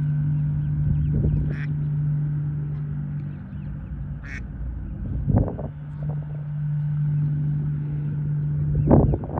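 Ducks quacking in three bursts spread across a few seconds, over a steady low hum that fades out for a few seconds in the middle.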